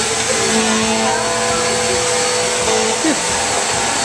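Vacuum cleaner running steadily, a constant rushing hiss over an even motor hum, as it is pushed along the floor.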